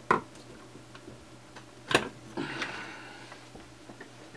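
Hands handling the opened LED PAR can's housing on a work mat. There are two sharp knocks about two seconds apart, the second the louder, followed by a short scrape as the parts are moved.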